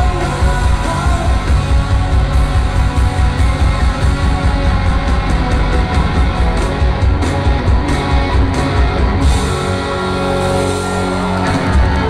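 Rock band playing live, with electric guitars, keyboard, drums and singing, heard from within the audience in a large hall. About nine seconds in the beat stops and the final chords ring out, the end of the song.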